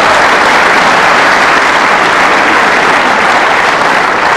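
Large audience applauding steadily and loudly, a dense even clatter of many hands clapping.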